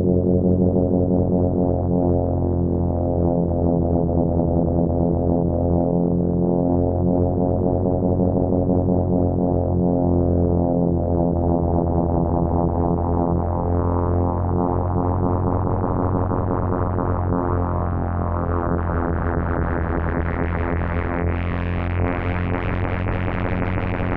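Behringer 2600 analog synthesizer holding a sustained low, droning chord. Over the second half the tone grows steadily brighter and buzzier.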